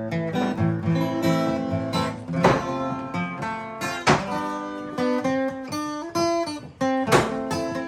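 Music on acoustic guitar: plucked melody notes with a full chord strummed every second or two.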